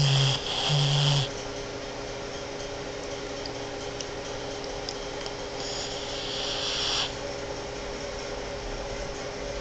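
Boston Terrier snoring in her sleep: two short, loud snores with a low buzzing pitch right at the start, then a longer, softer hissing breath about six seconds in.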